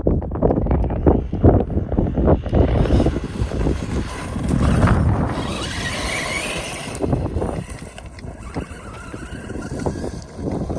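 Strong wind buffeting the microphone, over a DHK Maximus 1/8-scale brushless RC truck driving on a loose dirt road. A motor whine rises and falls in the middle.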